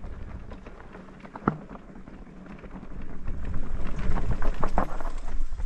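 Electric mountain bike riding over rough, rocky ground: tyres and frame rattling and knocking on stones, with wind on the microphone. It gets louder over the second half.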